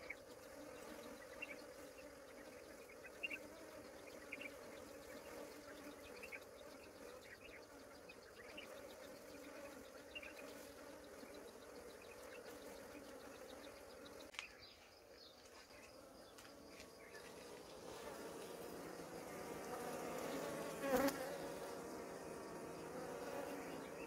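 Honeybees humming at the hive, a steady drone that drops away briefly about halfway and then grows louder, with a sharp click near the end.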